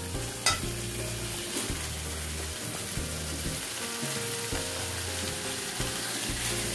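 Raw chicken pieces sizzling as they go into hot oil with fried onions and masala in a nonstick kadai, then stirred with a flat spatula. There is a sharp click about half a second in.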